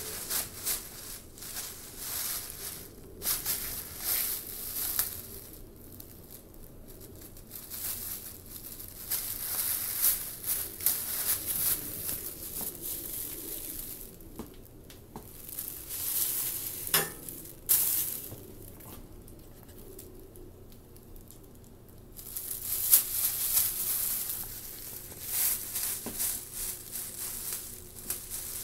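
Thin plastic grocery bag crinkling and rustling in irregular bursts as a cat noses and pushes about inside it, with a few quieter pauses.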